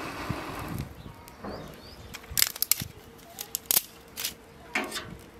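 Dry twigs and kindling snapping with sharp cracks, several in quick succession in the middle and a few single cracks after, following a short rush of noise at the start.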